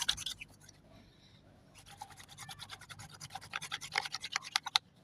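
A wooden stick rubbed rapidly back and forth in a friction attempt to make fire, giving quick, even scraping strokes. There is a brief run at the start, then a pause, then a longer run that stops shortly before the end.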